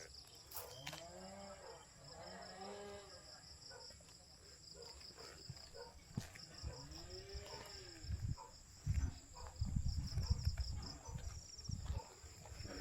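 Low animal calls that rise and fall in pitch, two early and one near the middle, over a steady pulsing insect trill. Heavy low thumps and rumbles come in the second half.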